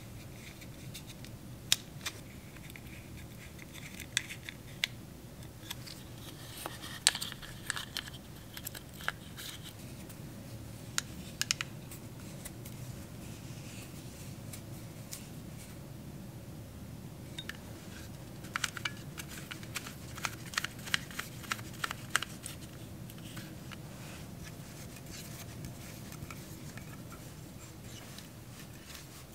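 Small screwdriver and hex key clicking and scraping against the plastic and metal parts of a mountain bike shifter as it is taken apart. Sharp clicks come in clusters, busiest about a quarter of the way in and again past the middle, over a low steady hum.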